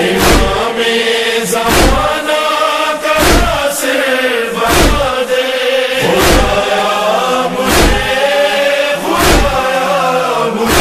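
Male chorus chanting a held, wordless refrain between verses of an Urdu noha, over a deep thump that falls about every second and a half.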